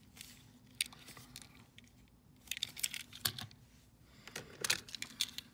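Small clicks and clinks of Matchbox 1:64 die-cast toy cars being handled and set down on a table among others, in a few short flurries of taps.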